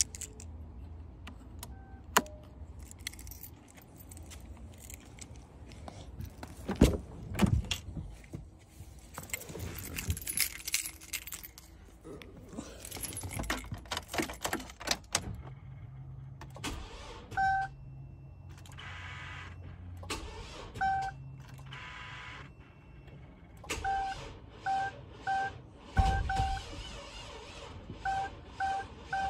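Car keys jangling and handling clicks, then a GMC's dashboard warning chime beeping over and over, in quick runs near the end.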